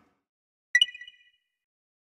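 A single short, bright chime sound effect about a second in: a sharp click that rings on in a few high tones for about half a second. The rest is silence.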